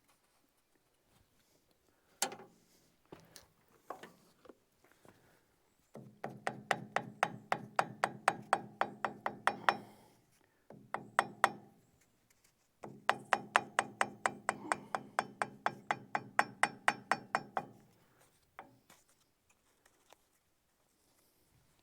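Rapid light hammer taps ringing on metal, about four a second, in two runs of four to five seconds each, after a single knock about two seconds in.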